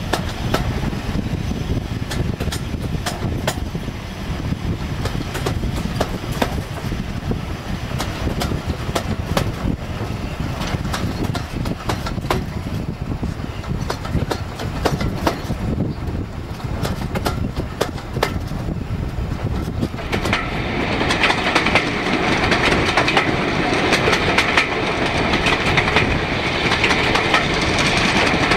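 Ride in a coach behind Class 52 'Western' diesel-hydraulic D1013, whose twin Maybach engines are working hard: a steady rumble with the coach wheels clicking over rail joints. It grows louder about twenty seconds in, as the locomotive heads into a tunnel.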